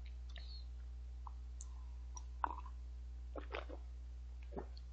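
Faint scattered clicks and mouth sounds from a person sipping black coffee from a mug close to the microphone, the sharpest click about two and a half seconds in, over a low steady hum.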